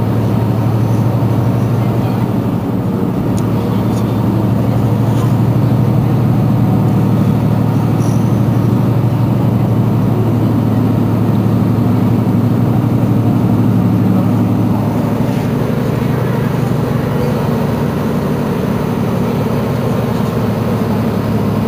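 Mercedes-Benz Citaro C2 city bus's rear-mounted six-cylinder engine idling steadily while the bus stands still.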